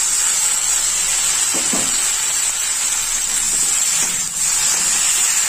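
Boiled vegetables sizzling in hot mustard-oil tadka in a steel kadhai: a loud, steady hiss, with a spatula stirring them near the end.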